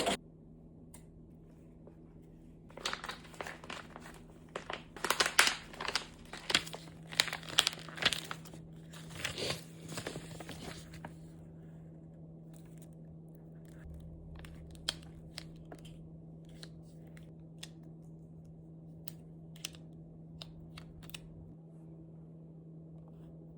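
Iron-on vinyl sheet crinkling and tearing as cut letters are peeled away from it, in a busy run of rustles for several seconds, then only occasional soft ticks. A faint steady low hum sits underneath.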